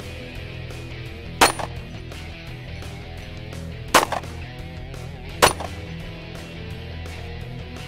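Three pistol shots: one about a second and a half in, the second about two and a half seconds later, and the third about a second and a half after that, each a sharp crack with a short tail. Background music plays underneath.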